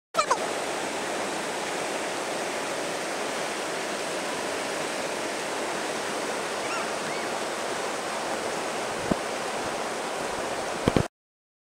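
Whitewater of the San Juan River's Government Rapid rushing steadily, running at about 2000 cfs. A few short knocks come near the start, about nine seconds in, and just before the sound cuts off suddenly.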